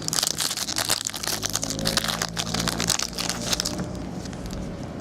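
A trading-card pack being opened and its cards handled: a dense run of rustling and crackling from the wrapper and cards that thins out near the end.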